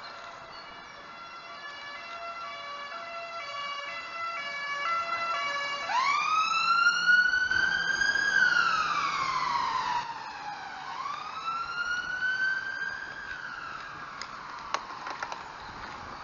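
Emergency vehicle siren passing: an alternating two-tone siren grows louder, then switches about six seconds in to a wail that rises and falls slowly twice before fading.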